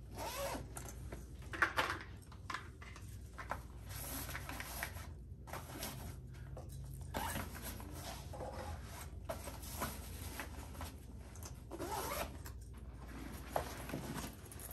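Zippers on a backpack's fabric compartments being pulled in several separate strokes, with rubbing and rustling of the bag's fabric as items are packed and the bag is closed.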